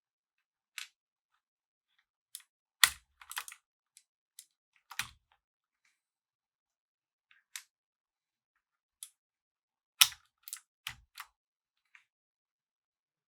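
Razer BlackWidow V3 Pro keyboard's green clicky mechanical switches being pressed in scattered single keystrokes and short runs of a few keys. The strongest strokes, about three seconds and ten seconds in, carry a low thud.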